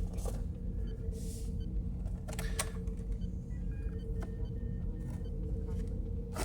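Packaging of a boxed die-cast model being handled: a few scattered clicks and a brief rustle over a steady low hum.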